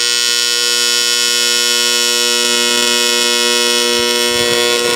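Miller Dynasty AC TIG welding arc on aluminum: a loud, steady electric buzz with a stack of pitched overtones, switching on sharply. This is a tack weld whose argon shielding gas was being blown away by a draught through the shop door.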